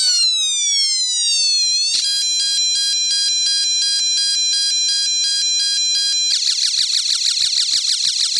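Homemade electronic sound-effects generator kit stepping through its built-in effects. First comes a falling siren-like pitch sweep. About two seconds in it switches abruptly to a steady pulsing electronic beep, and about six seconds in to a fast, rapidly repeating buzzy chirp, several per second.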